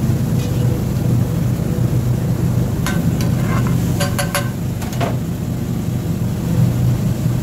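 A steel ladle clinks against a large flat iron tawa while stirring a thick sauce, with a handful of sharp metallic clinks about three to five seconds in. A steady low hum runs underneath.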